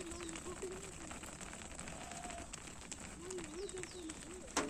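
A flock of sheep walking on brick paving: many small, irregular hoof clicks and patter, with a few faint wavering calls. A single sharp knock near the end.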